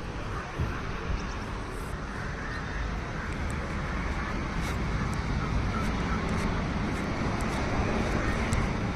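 Outdoor road-traffic noise: a steady low rumble of passing vehicles that grows slowly louder, with a few faint clicks.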